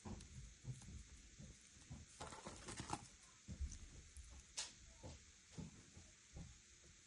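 Faint, irregular soft pats and squishes of a squishy cat-paw toy being pressed and squeezed by hand, with a brief rustle about two seconds in.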